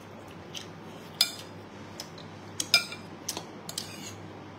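Metal spoon and fork clinking and scraping against a bowl of rice while eating. There is a sharp clink about a second in, then a handful more in the second half.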